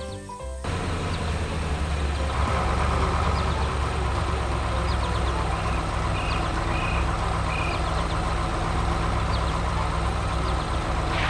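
Heavy vehicle engine idling steadily, starting about half a second in. Three short high beeps come around the middle, and a rush of noise swells at the very end.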